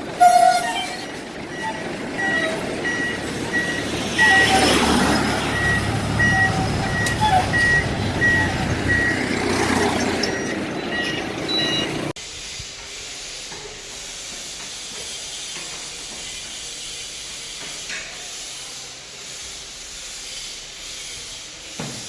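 Heavy machinery moving with a reversing beeper sounding about twice a second over its running noise, which swells twice. About halfway through, the sound cuts off abruptly to a quieter steady hiss.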